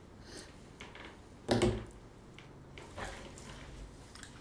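Quiet room with one short bump or rustle about one and a half seconds in and softer rustling around three seconds, from a person shifting his body, clothing and headset close to a desk microphone.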